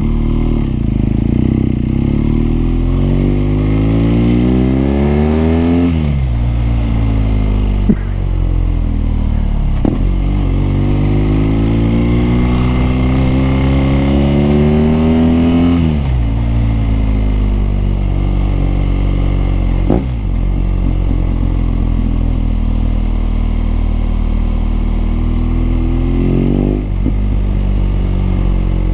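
BMW R nineT motorcycle's boxer-twin engine pulling up through the gears: pitch climbs for several seconds and drops at each upshift, twice, then holds steady while cruising before a short rise and another shift near the end.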